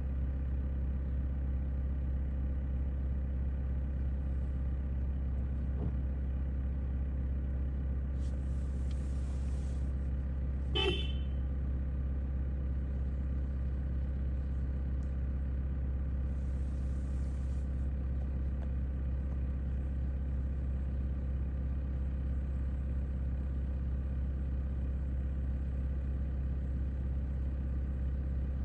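Car engine running steadily, a constant hum. About eleven seconds in comes one short, high toot, with brief hissing a little before it and again around sixteen seconds in.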